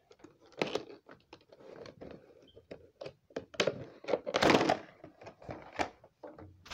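Handling noise: a run of short knocks and thunks, with a denser burst of rustling about four and a half seconds in.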